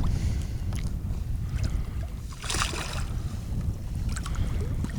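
Low steady rumble of a small fishing boat on the water, with scattered light clicks and a brief hiss about two and a half seconds in.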